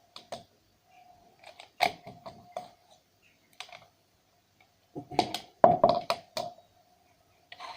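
Irregular clicks and knocks of small tools and parts being handled during soldering work, thickest in a cluster about five to six and a half seconds in, over a faint steady hum.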